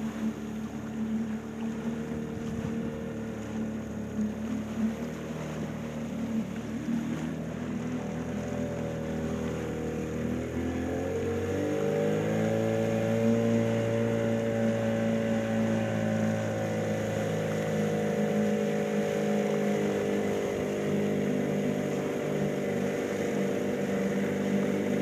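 Small motorboat's engine running steadily. Its pitch rises about ten seconds in as the engine speeds up, then holds.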